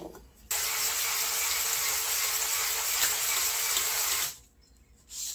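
Power drill spinning an Ammco cylinder hone inside the cast-iron sleeve of a 1989 Suzuki LT250R two-stroke cylinder. It is a steady motor whine with the hiss of the stones scraping the bore. It runs for about four seconds, starting about half a second in, then stops suddenly. This is the last honing pass, taking the remaining rust off the top of the bore.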